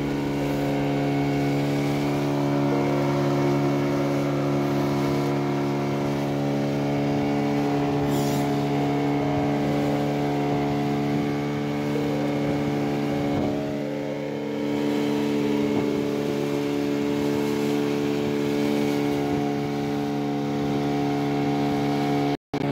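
Small fishing boat's engine running steadily under way, a constant drone that dips slightly about two-thirds through and cuts out for an instant near the end.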